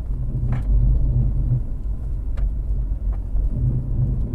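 Badly worn front wheel bearing on a 2008 Subaru Outback grinding with a steady low rumble, heard from inside the cabin while driving, with a few faint clicks. The grind is worst on left turns and is the sign of a failed bearing.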